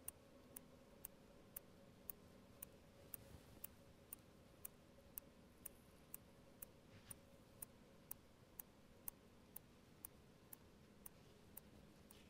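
Clock ticking faintly and steadily, about two ticks a second, in an otherwise near-silent room.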